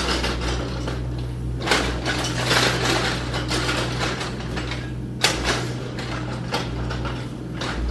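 Mechanical clattering and clicking over a steady low hum, with a few louder rattling bursts.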